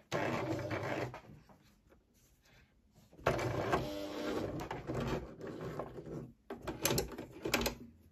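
Singer Tradition sewing machine stitching in runs: one of about a second at the start, a longer run of about three seconds from about three seconds in, then a few short bursts near the end.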